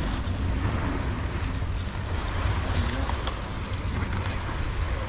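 Wind buffeting the microphone: a steady low rumble with broad rushing noise.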